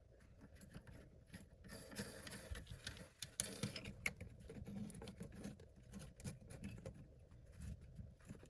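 Plastic lock nut being threaded by hand onto the shank of a new toilet fill valve under the tank: faint, quick plastic clicks and scraping, busiest a couple of seconds in.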